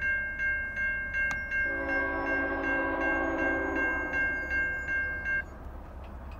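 Railroad grade-crossing warning bells ringing in a rapid steady clang, nearly three strokes a second, while the gates lower, then cutting off a little over five seconds in once the gates are down. Just under two seconds in, the horn of the approaching Norfolk Southern train sounds one held chord for about two seconds.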